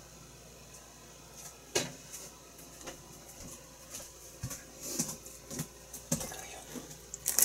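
Kitchen handling noises: scattered light clicks and knocks, more frequent in the second half. A rustle starts just before the end.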